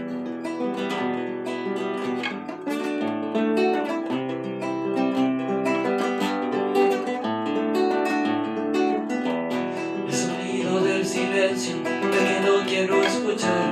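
Acoustic guitar intro, picked notes with chords, becoming brighter and more strummed about ten seconds in.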